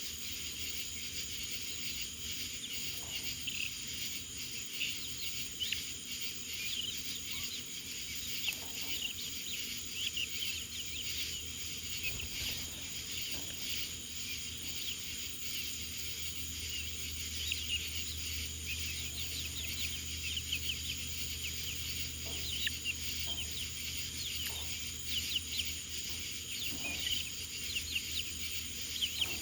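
Many birds chirping at once in short, high calls, over a steady high buzz like insects. A faint low hum comes in about halfway through.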